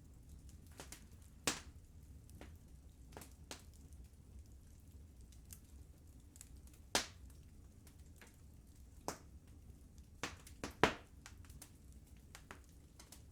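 Wood fire crackling, with sharp irregular pops over a low steady rumble; the loudest pops come at about 1.5 s, 7 s, 9 s, and a quick cluster between 10 and 11 s.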